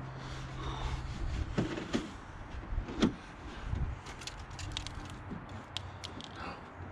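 Light clicks and knocks of hands working at a truck's turn-signal bulb socket and housing, one sharper knock about three seconds in and a run of small clicks near the end. A faint low hum is heard in the first second.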